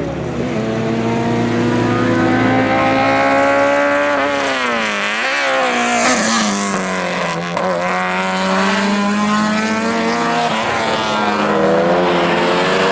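Naturally aspirated Honda Civic four-cylinder race engine pulling hard on track: its pitch climbs, drops sharply with a wavering dip about five seconds in, climbs again, falls near eight seconds, holds, then climbs again near the end.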